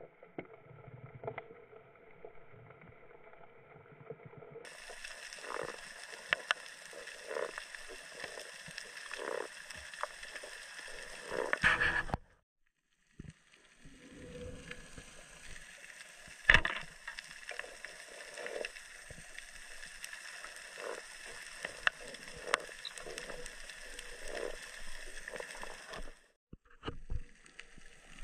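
Underwater sound picked up by a diver's camera: a steady hum with frequent clicks and knocks. The sound cuts out for about a second partway through, and again briefly near the end.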